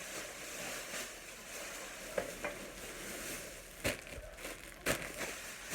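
Packaging rustling and crinkling as it is handled, with a few sharp clicks or knocks about two, four and five seconds in.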